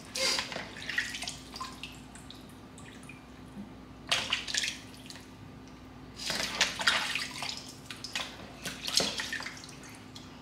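Water splashing in a kitchen sink in short, irregular bursts, about four in all, as raw chicken pieces are rinsed and handled. A faint steady hum runs underneath.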